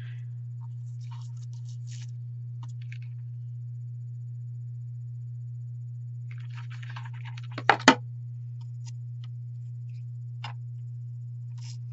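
Steady low hum under faint rustling and clicking of paper and a hot glue gun being handled, with two sharp knocks just before eight seconds in as the glue gun is set down on the table.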